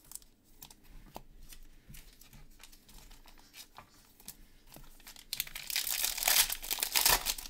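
Trading-card pack wrapper being handled and then torn open: light scattered clicks and rustles, then a loud tearing crinkle about five seconds in that lasts about two seconds.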